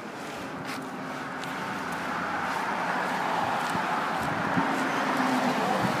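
Road traffic: a vehicle driving past, its tyre and engine noise swelling to a peak around the middle and easing slightly near the end.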